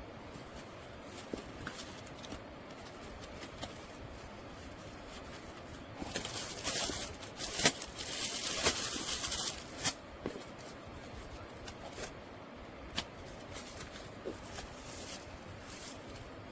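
Scattered light clicks and taps from objects being handled, with a louder rustle lasting about four seconds from around six seconds in.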